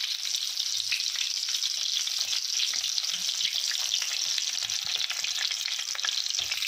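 Frozen, breadcrumb-coated chicken kababs shallow-frying in a little oil in a frying pan: a steady, bright sizzle with fine crackling.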